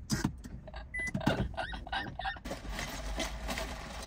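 Inside a car being started: scattered clicks and a short electronic beep about a second in, over a low steady rumble, with a denser run of ticking from about halfway.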